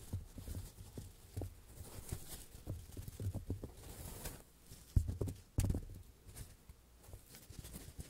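Foam blocks handled by hand: a run of soft taps, rubs and squishes, with two louder knocks about five seconds in.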